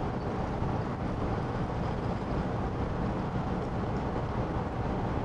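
Water poured from a glass bottle into a glass carafe with ice and lemon peel, over a steady low rumble of background noise.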